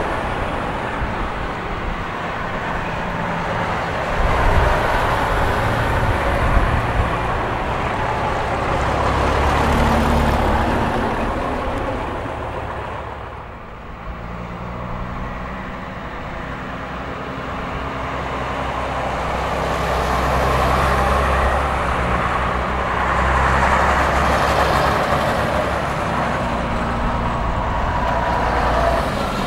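Diesel engines of vintage double-decker buses running past. The sound swells and fades as the buses pull away and come by, dips to a lull about halfway through, then builds again as another bus approaches and passes near the end.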